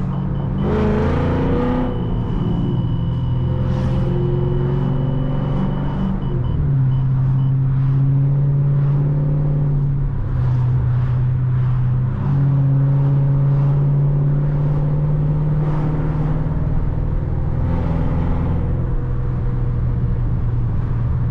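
Chrysler 300C's 5.7-litre HEMI V8 running steadily while the car is driven. The engine note holds level with several abrupt steps in pitch, about six, ten and twelve seconds in, as revs change.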